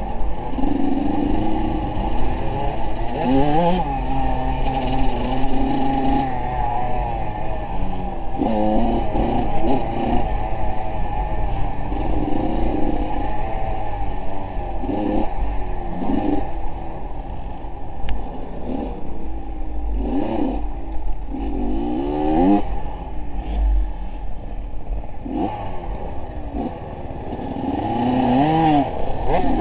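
A vehicle engine being revved up and down over and over, its pitch climbing and dropping every second or two, with scattered knocks and rattles.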